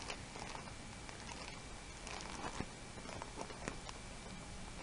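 Faint rustling and light clicks of plastic sheet protectors and paper as pages of a ring binder are turned.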